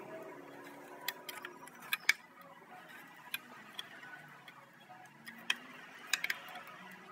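Faint, irregular metallic clicks of a ratchet turning a T30 Torx bit to loosen the bolts holding a fuel pressure sensor on the fuel rail, in short strokes with pauses, the loudest pair about two seconds in.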